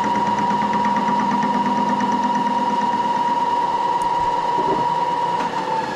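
Moore jig borer spindle running with an offset boring head, a steady whine over a lower hum. Near the end the whine begins to fall as the spindle winds down.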